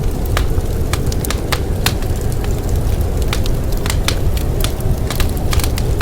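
Wood fire crackling, with irregular sharp pops several times a second over a steady low rumble of wind.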